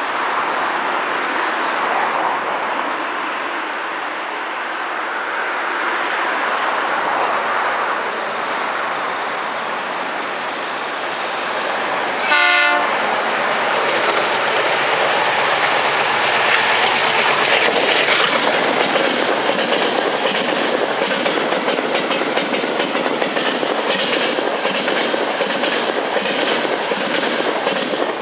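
A CP 1960-class diesel locomotive hauling loaded hopper wagons. Its engine runs steadily as it approaches, then it gives a short horn blast about twelve seconds in. After that comes a louder, steady clickety-clack of the wagon wheels over the rail joints as the train passes.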